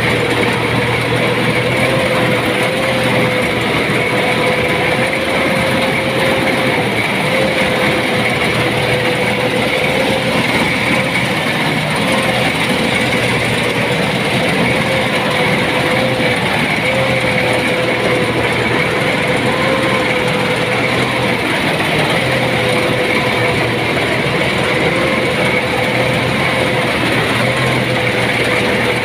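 Rice combine harvester running steadily under load, a loud, continuous machine noise with a steady, slightly wavering whine over it.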